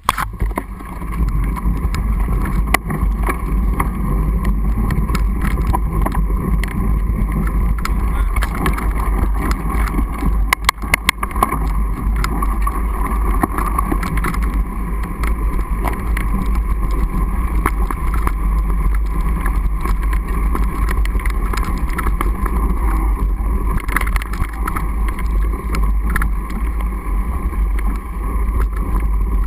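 Fat bike rolling over packed snow, heard on a bike-mounted camera's microphone as a steady low rumble of wind and tire noise, with scattered clicks and knocks from bumps and a burst of them about ten to eleven seconds in.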